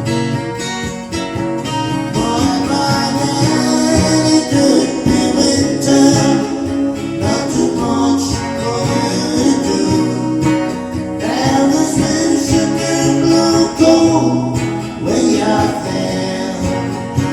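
A voice singing a country-folk song, accompanied by acoustic guitar.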